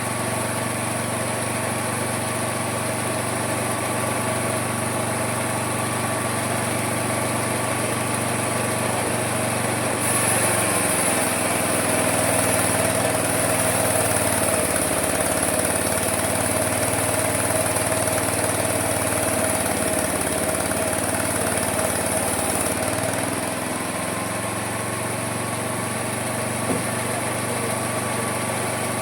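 Homemade mini sawmill running steadily. From about ten seconds in it gets louder and harsher for some thirteen seconds, its pitch dipping and recovering as the blade labours through the wood, then it settles back to running free.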